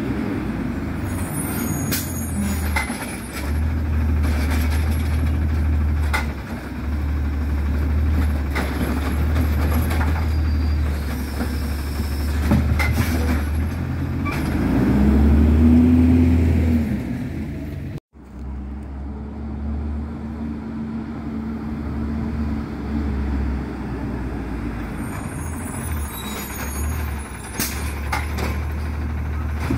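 Automated side-loader garbage truck's diesel engine running at a steady low rumble as it pulls up to the bins. It revs up and back down about halfway through. Short air-brake hisses come near the start and near the end.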